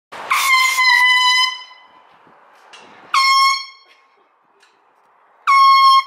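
An air horn blown in three loud blasts, one steady pitch each time: the first lasts over a second, the next two are short, a couple of seconds apart.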